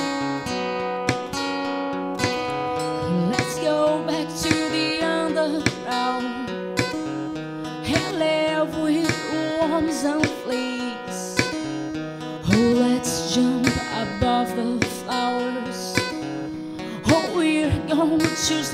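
Live pop-rock song: a strummed acoustic guitar with light drums keeping time, and a woman singing the melody from a few seconds in.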